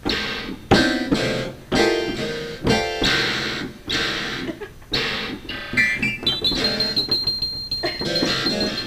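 Guitar playing struck chords that ring and fade, about one a second, then a quick rising run of high notes into one held high note near the end.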